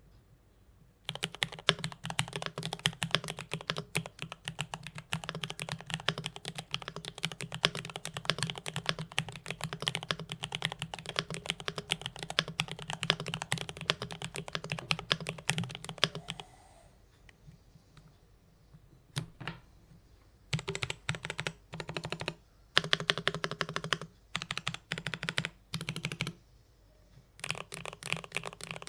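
IDOBAO ID80 mechanical keyboard with stock, factory-lubed Gateron Milky Yellow Pro linear switches and cherry-profile keycaps, typed on fast: a poppy clacking. A steady run of fast keystrokes stops about 16 seconds in, and after a short pause the typing comes back in short bursts with gaps between them.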